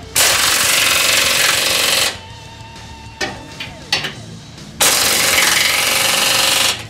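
Impact driver hammering bolts tight, in two bursts of about two seconds each with a pause between them.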